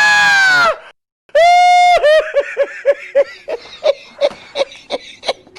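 A loud high cry, a brief silence, then a long held 'haaa' that breaks into a run of short 'ha-ha-ha' laughs, fading toward the end: exaggerated comedic laughter.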